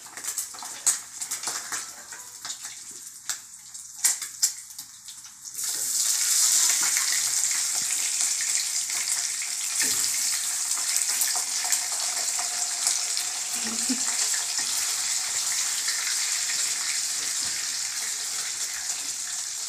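Meat frying in hot oil in a frying pan: a few clicks of tongs and utensils, then about five and a half seconds in a loud steady sizzle starts abruptly and carries on.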